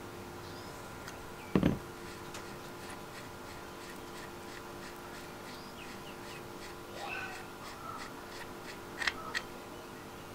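Hand-handling of a vintage Stanley electric drill on a workbench while its chuck is unscrewed from the threaded spindle. There is a single knock about a second and a half in, then a run of faint light ticks. A brief squeaky scrape comes around two-thirds of the way through, and two sharp metallic clicks follow near the end.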